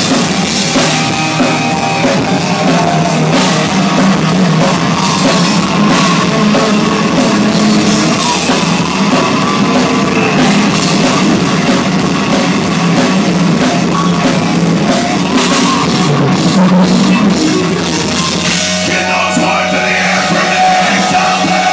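Thrash metal band playing loudly live: electric guitars over a pounding drum kit, the full band going without a break.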